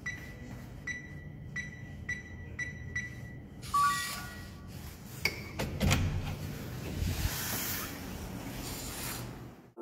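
Smart door lock's touch keypad beeping once for each key pressed, six short beeps, then a short rising three-note chime from the lock about 4 s in. After the chime come a few sharp clicks and a low rumble as the handle and door are worked.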